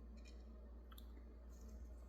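Near silence: faint room tone with a low hum and a few faint clicks, one about a second in.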